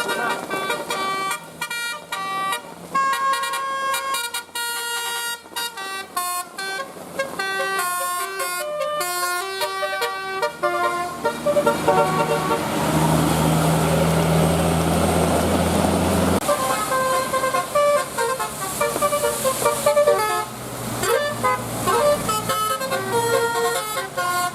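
Bus 'telolet' Basuri multi-tone horn playing a quick tune of short, stepped notes. About halfway through, a bus engine drones loudly with a rush of noise for about five seconds, and then the horn tune starts up again.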